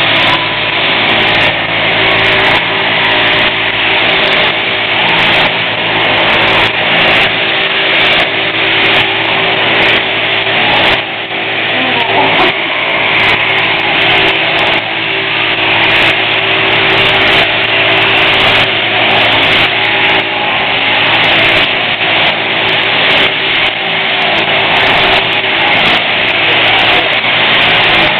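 Electric sheep-shearing handpiece, driven from an overhead shearing machine through a jointed down tube, running steadily as it cuts a sheep's fleece. Its level wavers slightly as the comb and cutter work through the wool.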